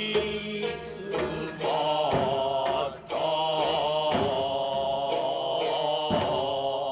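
Kabuki takemoto accompaniment: a gidayū chanter's held, wavering voice over a few sharp plucked shamisen notes spaced a second or two apart.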